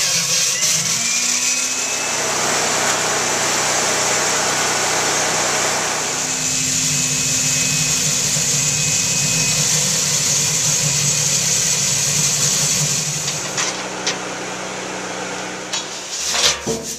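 A motor-driven machine running steadily with a low hum and a high hiss. It eases off after about thirteen seconds, and a few sharp metallic knocks follow near the end.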